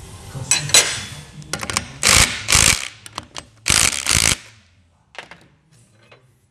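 Metal shock-absorber parts and hand tools handled at a workbench: sharp clicks, then two pairs of loud short bursts of noise, then a few faint clicks.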